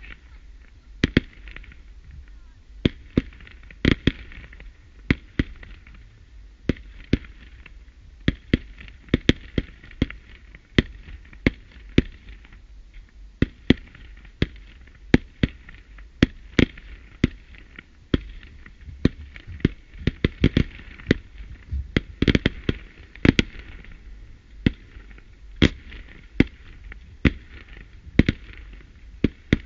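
Fireworks display: a continuous, irregular run of sharp bangs, about two a second, from firework batteries shooting fans of comets.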